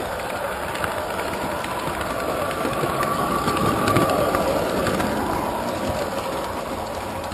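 Model train running along its track, a steady rattle of wheels with small clicks over the rail joints and the whir of its motor.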